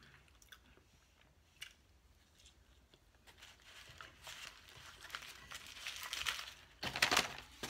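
Foil sandwich wrapper crinkling and rustling as it is handled and unwrapped. It starts about three seconds in as a faint crackle with small ticks and grows louder toward the end.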